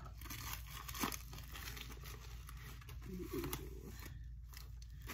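Plastic mailer bag crinkling as it is handled and opened by hand, in short irregular rustles.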